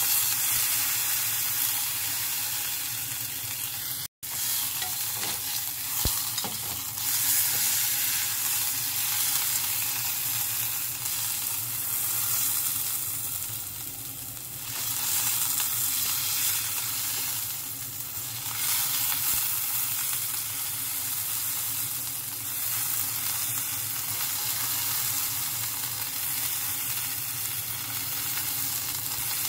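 Beef round searing in olive oil in a frying pan, a steady sizzle. The sound drops out for an instant about four seconds in.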